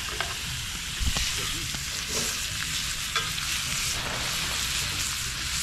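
Steak fat sizzling on a hot cooking surface as it renders out, a steady frying hiss. A few light clicks and a dull bump about a second in.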